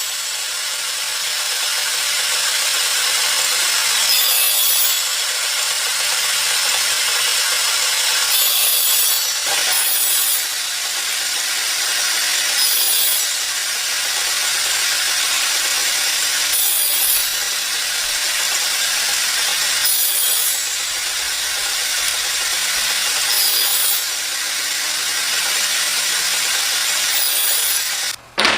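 A saw cutting through wood: a steady, noisy cutting sound with a brief brighter flare every three to four seconds. It stops abruptly near the end.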